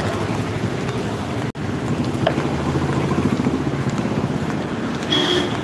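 Busy street ambience: traffic noise and the general hubbub of a market street, with wind on the microphone. The audio drops out briefly about a second and a half in.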